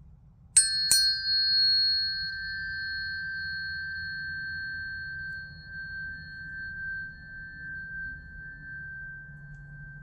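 Tuning fork struck, with a second tap a moment later, then ringing on with a clear high tone and a fainter, higher overtone that slowly fades away.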